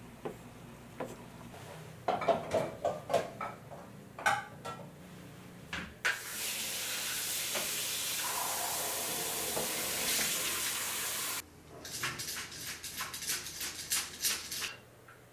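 Home cooking sounds: utensils clinking and knocking against cookware, then about five seconds of steady hiss that cuts off suddenly, then a quick run of knocks.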